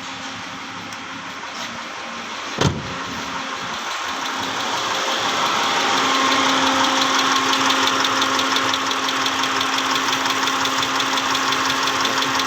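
Mitsubishi 6G74 V6 petrol engine idling with a fast, even ticking from the top end, which the mechanic suspects is a stuck valve lifter clogged by very dirty oil. A single sharp click comes about two and a half seconds in, and the engine grows louder about five seconds in.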